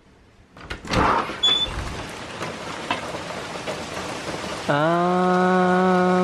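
Hurricane rain falling steadily, coming in suddenly about a second in after a quiet start. Near the end a loud, steady, buzzy low hum starts with a short upward slide and sounds over the rain for about a second and a half.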